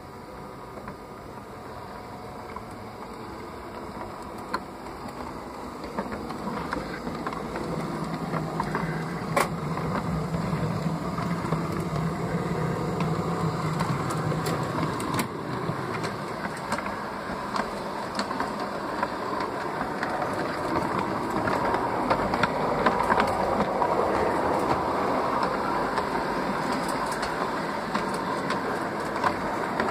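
LGB garden-scale rack-railway electric locomotive 22460 and its coaches running on model track, heard from on board: wheels clicking over the rails and the motor humming. The sound grows steadily louder, with a low hum for several seconds near the middle.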